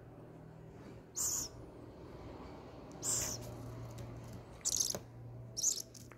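Owl chicks giving short, high, hissing screeches, four bursts at uneven spacing: the begging calls of hungry nestlings at feeding time.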